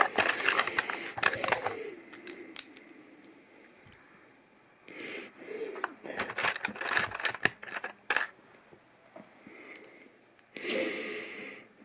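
Plastic LEGO pieces being handled and snapped together: scattered sharp clicks and small rattles in irregular clusters, with short stretches of rustling.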